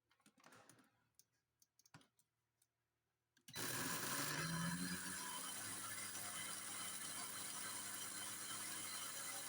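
A few faint clicks and knocks, then about three and a half seconds in an electric blender switches on and runs steadily, its motor hum rising briefly as it comes up to speed, grinding dried date pieces into a fine powder.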